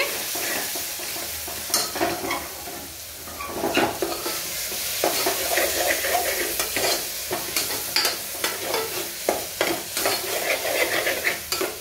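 Onion-tomato masala with ground spices frying and sizzling in oil in a pressure cooker, while a metal ladle stirs and scrapes it, with frequent short scrapes and knocks against the pot. This is the masala being roasted (bhuna) in oil.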